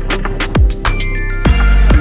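Electronic music with a driving beat of deep kick drums and sharp high ticks; a heavy bass swells in about one and a half seconds in.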